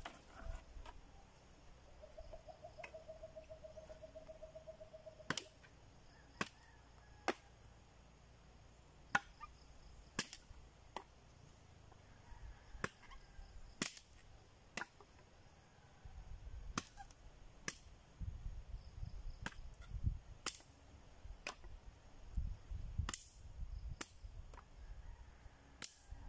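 Dead, rain-soaked branches being cut and broken by hand: a string of sharp dry cracks, irregularly spaced a second or two apart, about fifteen in all.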